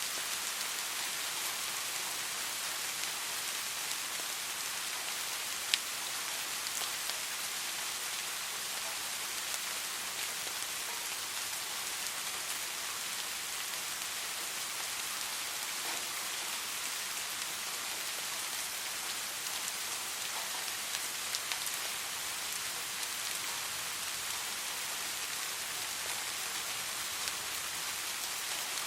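Soft, steady rain falling, an even hiss with scattered individual drops ticking on a surface; one sharper drop tick stands out about six seconds in.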